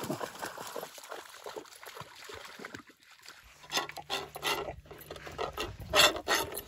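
A chocolate Labrador licking a plate clean, a quick run of loud, wet smacking licks against the plate in the second half. Before that comes an irregular rustle and crackle of the dog moving through wet shoreline grass.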